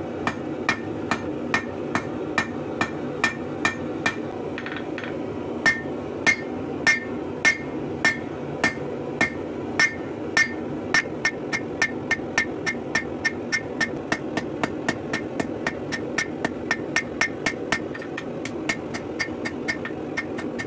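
Hand hammer striking red-hot rebar on a steel anvil to draw out the bar, a steady rhythm of about two to three blows a second, each with a short metallic ring. The blows come a little slower and louder in the middle, over a steady background noise.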